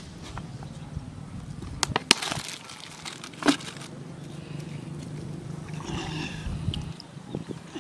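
Handling clatter: sharp knocks from a plastic bucket and a steel plate being handled at the water's edge, the loudest a little after two seconds and at about three and a half seconds, over a steady low hum.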